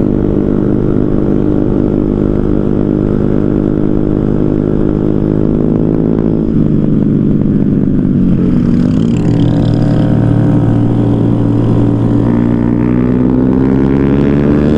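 Motorcycle engine running steadily under way. Its pitch shifts about six and a half seconds in, dips and rises again around nine seconds, then climbs slightly near the end.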